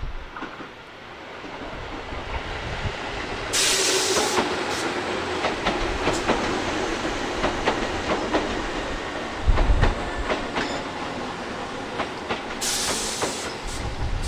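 A Tobu Railway electric train passing close by, its wheels clicking over rail joints. There are two short bursts of hiss, about a quarter of the way in and near the end, and a low thump about two-thirds through.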